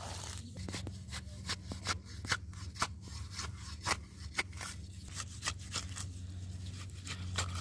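A hand pushing through and pulling at a clump of sedge grass: irregular, crisp rustling and snapping clicks, over a steady low hum.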